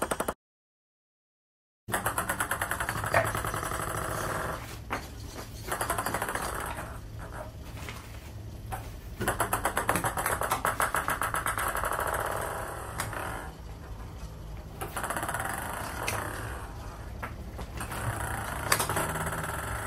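Futaba S9257 digital servo driving the goalie arm, chattering in rapid even pulses that start and stop in bursts as it repositions. The sound drops out for about a second and a half near the start, and there is a sharp knock near the end.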